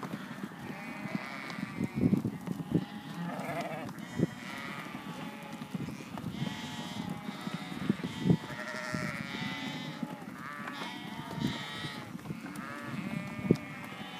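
A large flock of ewes and lambs bleating, many overlapping calls at once, with a few sharp knocks scattered through.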